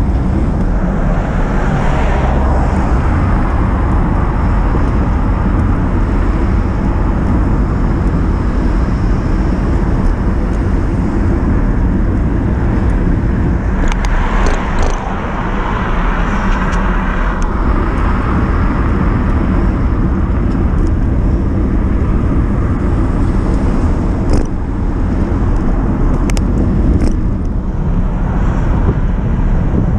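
Steady wind rumble on the microphone and tyre-on-tarmac road noise from a bicycle riding along a road, with a few short clicks or rattles.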